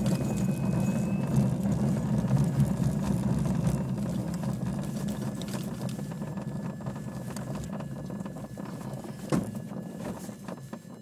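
Rumble of a DG-505 glider's wheel and airframe rolling over a grass field, fading steadily as the glider slows on its landing roll. A single knock comes about nine seconds in.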